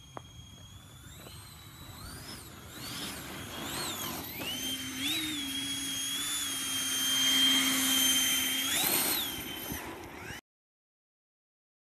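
Electric RC car fitted with an electric ducted-fan (EDF) jet: a high electric whine with a rush of air that swings up and down in pitch as the throttle is worked, building to its loudest a little past the middle. The sound cuts off abruptly about ten seconds in.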